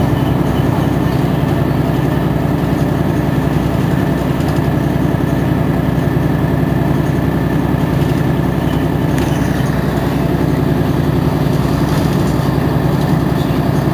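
Mercedes-Benz Citaro G articulated city bus's engine idling steadily while the bus stands at a stop, heard from just behind the bus. A thin steady whine sits above the low engine note.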